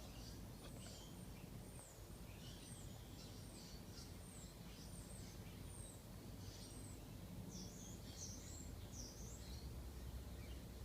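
Faint, repeated short chirps of small birds in the background over a steady low hum.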